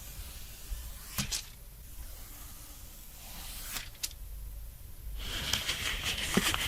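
A motherboard being handled: a few sharp clicks and taps, then a denser stretch of scraping and rustling with more clicks near the end.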